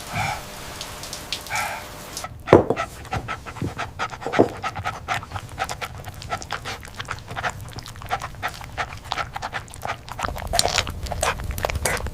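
A dog panting quickly, a fast run of short breaths from about two seconds in, with a couple of louder thumps early on.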